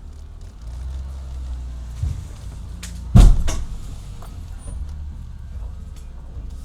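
Pickup truck engine running with a low, steady rumble, heard from inside the cab, with a small knock about two seconds in and a single loud sharp thump about three seconds in.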